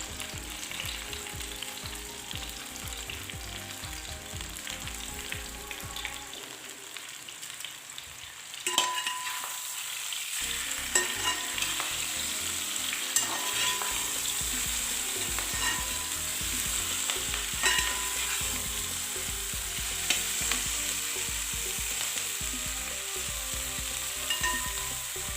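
Masala-coated cauliflower frying in coconut oil in an uruli, a steady sizzle, with a spoon stirring and clinking against the pan every few seconds. The sizzle gets louder about nine seconds in.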